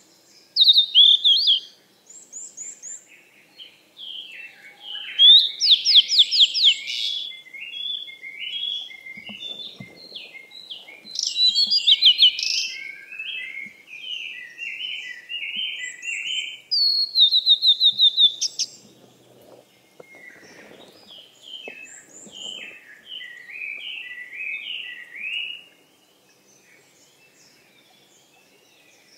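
Several songbirds singing: rapid chirping trills and short high falling whistles, overlapping, dying away near the end.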